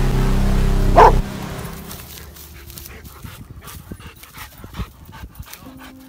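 A Rottweiler barks once about a second in, over a loud steady drone of background music that stops just after. Then the dog pants quietly, with faint rustling in dry rice stubble.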